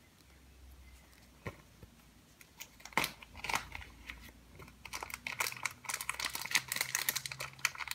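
Small clear plastic zip-lock bag crinkling and crackling as it is handled and opened. Sparse clicks come first, then dense crackling over the last few seconds.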